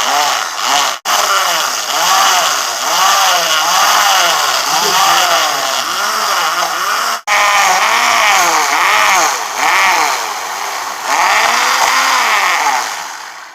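A 775 DC motor driving a small plywood lathe, running loud, with its pitch repeatedly dipping and rising about once a second under a rough hiss. It cuts out for an instant twice, about a second in and about seven seconds in, and fades near the end.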